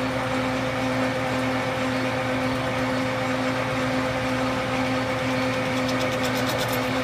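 Metal lathe running steadily with an even motor hum. Near the end a rapid, regular ticking starts over it.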